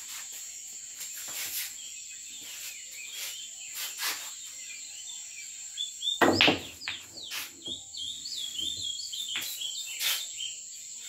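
A cue strikes the cue ball about six seconds in, followed by the rumble of balls rolling on the cloth and several sharp clacks of balls hitting each other and the cushions of a pool table. A steady high cricket trill runs underneath, with birds chirping.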